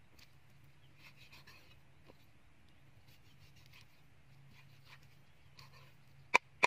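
Large knife slicing raw pork on a round wooden chopping board: faint scraping and soft ticks as the blade cuts through the meat, then two sharp knocks of the blade striking the board, about a third of a second apart, near the end.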